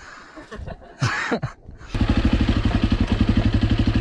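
A motorcycle engine idling with an even, rapid putter of about ten beats a second, coming in suddenly about halfway through; before it, low background noise and a brief voice.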